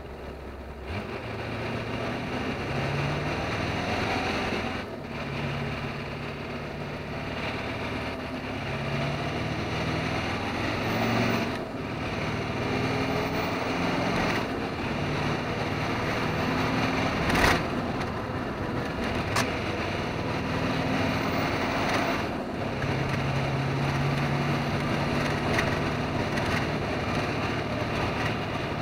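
Truck engine running as heard inside the cab, with tyre and road noise, its pitch stepping up and down as the truck changes speed. A sharp knock about seventeen seconds in is the loudest moment.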